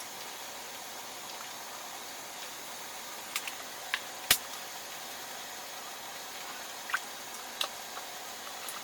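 Steady hiss with a few sharp clicks and taps scattered through it: a quick cluster about three and a half to four seconds in, the loudest just after, and two more around seven seconds in.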